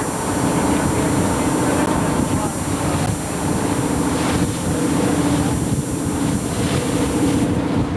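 Boat engine running steadily at an even pitch, with water and wind noise beneath it.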